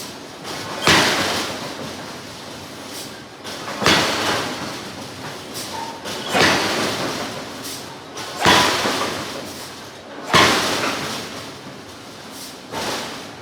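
Large hydraulic forging hammer striking hot steel, six heavy blows two to three seconds apart, each ringing out briefly.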